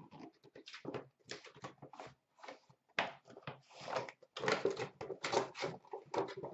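Hands handling a trading-card hobby box: the lid lifted off and the inner boxes slid out and set down on a glass counter. A run of irregular scrapes and rustles, busier from about three seconds in.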